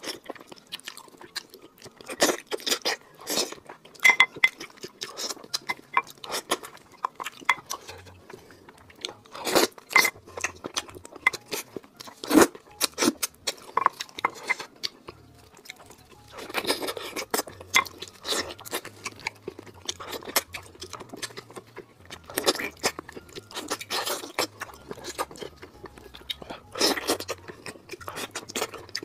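Close-miked wet chewing and biting as a person eats braised meat off the bone, heard as irregular clusters of sharp clicks and smacks.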